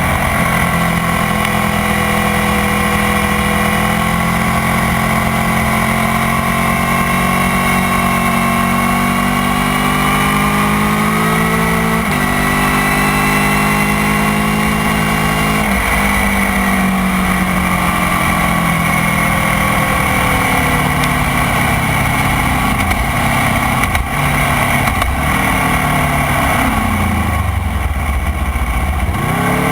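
Motorcycle engine running on track. Its pitch drifts slowly up and down, jumps sharply about twelve and sixteen seconds in as gears change, and dips and rises again near the end.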